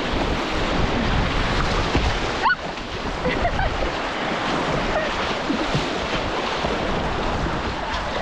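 Whitewater river rapids rushing steadily around a kayak, with some wind noise on the microphone. A brief rising squeal cuts through about two and a half seconds in.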